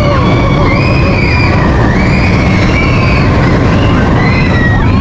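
Big Thunder Mountain mine-train roller coaster running along its track with a loud, steady rumble and squeals that rise and fall in pitch.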